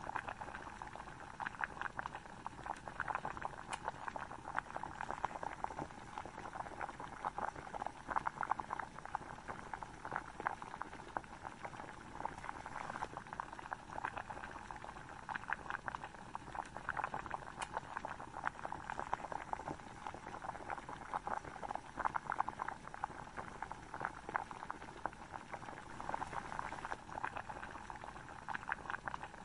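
Chicken gravy boiling hard in a metal pot: a dense, continuous crackle of small bubbles popping.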